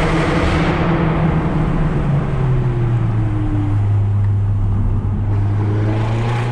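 Peugeot 208 GTi's 1.6-litre turbocharged four-cylinder through a decat Milltek exhaust with a valved Vittorelli muffler, heard from inside the cabin while driving. The engine drone drops in pitch about two seconds in, then holds steady over road noise.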